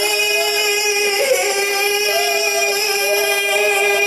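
A voice holding one long, steady sung note, with a short break about a second in. A second, wavering tone sounds above it from about a second and a half in.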